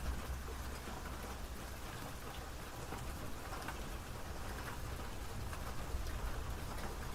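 Steady rain falling, a dense patter of drops striking a surface, with a low rumble underneath.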